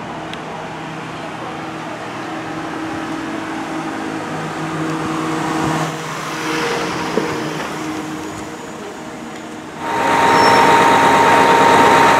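Ambulance van's engine running as it drives slowly past. About ten seconds in, this gives way abruptly to a much louder, steadily idling fire engine carrying a high steady whine.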